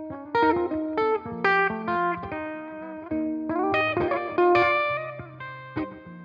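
1980 Greco EG-500 Les Paul-style electric guitar with Maxon humbucking pickups, played through an amp with effects: a run of picked single notes and chords that ring on.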